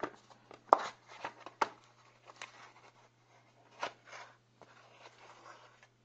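Hands handling a metal Zippo collector's tin and lighter on a tabletop: a series of sharp clicks and knocks, the loudest under a second in, with softer rustling between, over a faint steady low hum.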